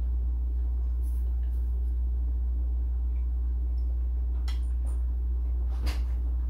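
A steady low hum throughout, with a few faint clinks of a fork on a plate as pie is eaten; the last and loudest comes about six seconds in.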